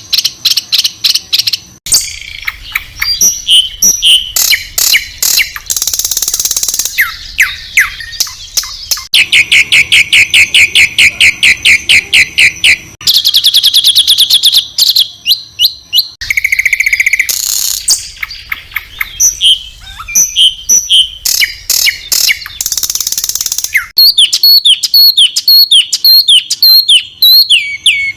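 A string of loud, high-pitched songbird calls: rapid trills and fast runs of repeated harsh chirps, each pattern lasting a second or few before cutting abruptly to a different one. This is a spliced bird-song training track of harsh 'shot' calls, used to teach caged songbirds.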